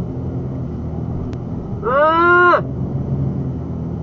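Steady drone of a four-wheel drive driving along beach sand, heard from inside the cab. About halfway through comes a short pitched vocal sound that rises and then holds for under a second.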